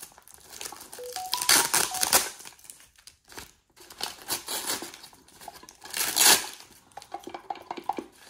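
Brown kraft-paper gift wrapping being torn open and crinkled by hand, in several irregular rustling bursts; the loudest tear comes about six seconds in.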